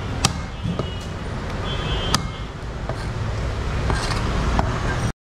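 A heavy butcher's knife chopping beef on a round wooden chopping block: a few sharp knocks, the loudest about two seconds in, over a steady low background rumble. The sound drops out abruptly just before the end.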